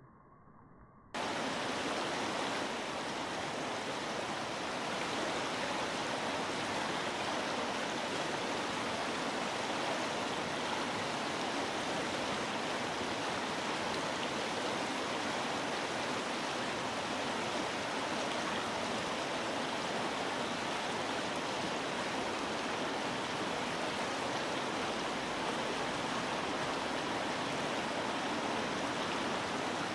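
Steady rush of flowing river water, an even hiss with no change in it, which starts abruptly about a second in.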